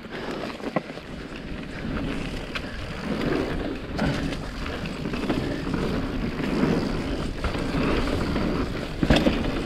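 Mountain bike riding fast over a dirt trail: tyres rolling on dirt with rattles from the bike and a few sharp knocks, and wind on the microphone.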